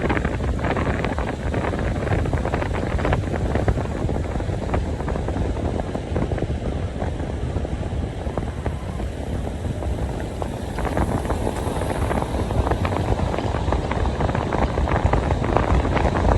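Steady rumbling, crackling noise of wind buffeting the microphone, with no speech or music.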